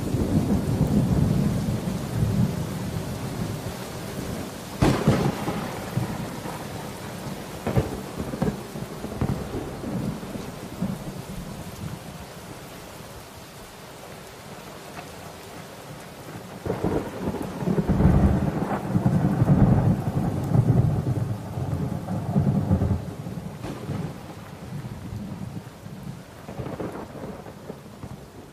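Thunder-like rumbling noise with no tune or beat, swelling and fading, with sharp cracks a few seconds in and a loud surge past the middle before it dies down toward the end; a noise passage from an experimental noise-rock album track.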